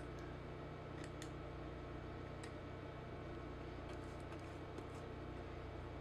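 Faint scattered sticky clicks and ticks of a brush spreading thick Barge contact cement over a shoe sole, with a steady low hum underneath.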